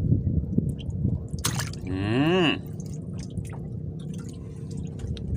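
Wet squishing and dripping as freshly caught scabbard fish are handled in the wet hull of a small boat, with small scattered clicks over a steady low rumble. A brief voice sound comes about two seconds in.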